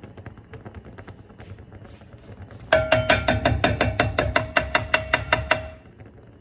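A kitchen utensil striking a metal pan over and over, about five strikes a second for some three seconds, the pan ringing at the same pitch with each hit, as egg is scrambled in it. Faint light tapping and scraping comes before it.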